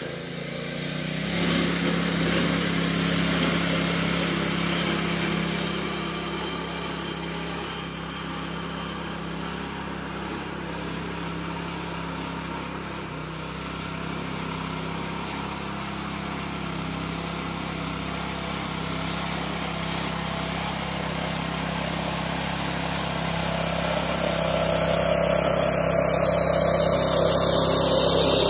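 Predator 212 single-cylinder engine in a small Farmall tractor, running steadily under load as the tractor pulls a trailer of three heavy round hay bales. It grows louder near the end as the tractor comes close.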